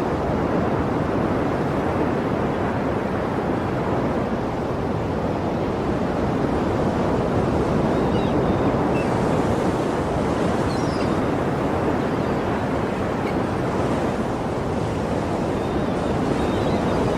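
Sea waves washing on the shore: a steady rushing surf that gently swells and ebbs in level.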